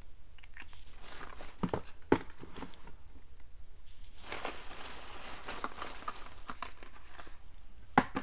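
Packaging rustling and crinkling as beauty samples are handled and taken out of a gift bag, with a sharp knock about two seconds in and another near the end as items are set down.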